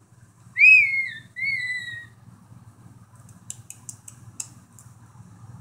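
Squeaky dog toy squeaked twice in quick succession by the dog's bite, each squeak a short whistle-like tone that falls in pitch, the first the louder. A few faint clicks follow near the end.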